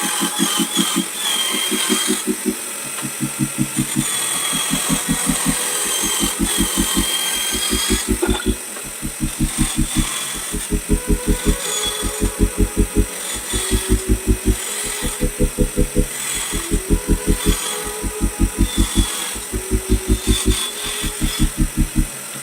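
Electronic background music with a rapid, evenly pulsing bass in repeating groups, over a steady high whine.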